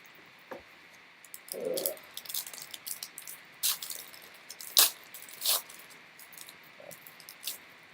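Foil trading-card pack wrapper crinkling and crackling in irregular bursts as it is worked and torn open by hand. The pack is stubborn to open.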